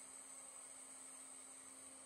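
Near silence: a faint steady hum and hiss.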